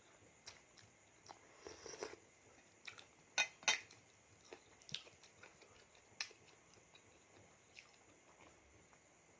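Quiet eating sounds: scattered clicks of utensils against a dish between chewing, with two sharper clicks about three and a half seconds in.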